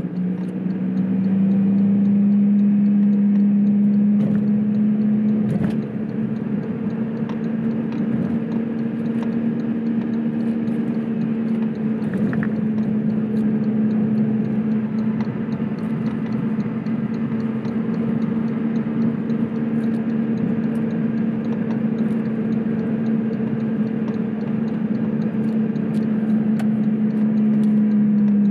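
Steady drone of a car's engine and tyres heard inside the cabin while cruising at a constant speed, with a small dip in loudness about six seconds in.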